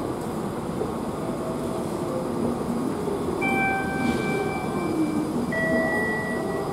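Escalator running: a steady mechanical rumble of the moving steps and drive, with thin, steady high whines starting about halfway through and another near the end.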